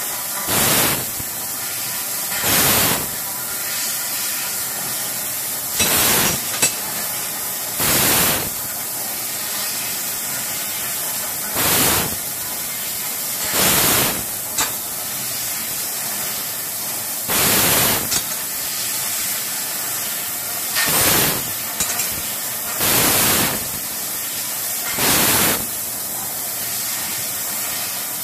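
Han's Laser P6018D laser tube cutter cutting holes in a long hollow tube: a steady hiss, with about ten louder hissing bursts under a second long that come every two to four seconds.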